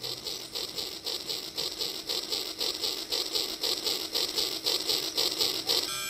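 Toy steam-train chuffing sound, a steady rhythm of about four chuffs a second that starts and stops abruptly.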